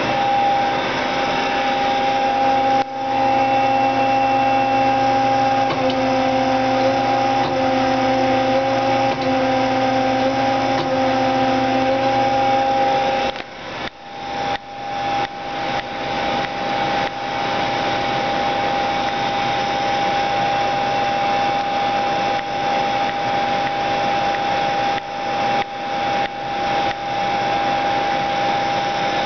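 1998 Mazak QT-20 CNC lathe running under power, a steady machine hum and whine with several held tones. About halfway through, the lower tones stop and the sound dips and swells again and again, while one higher tone carries on.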